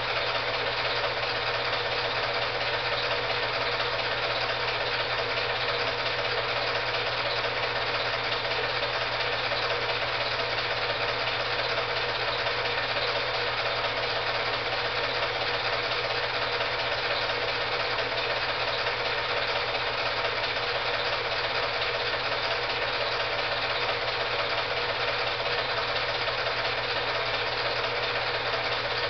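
Film projector running: a steady mechanical whir with a low hum, unchanging throughout.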